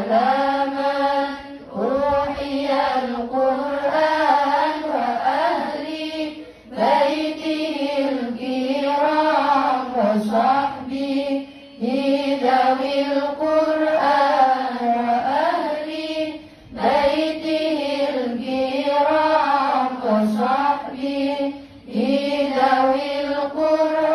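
A woman singing sholawat, Islamic devotional chant, solo into a microphone. She sings long phrases with winding, ornamented pitch and breaks briefly for breath about five times.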